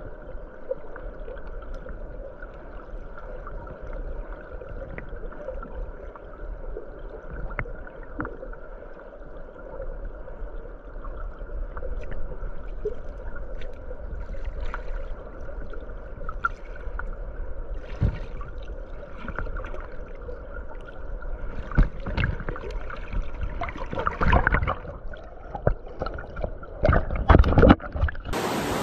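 Creek water rushing, heard muffled through a submerged waterproof action camera. In the last several seconds there are louder knocks and clunks as the camera is bumped and handled.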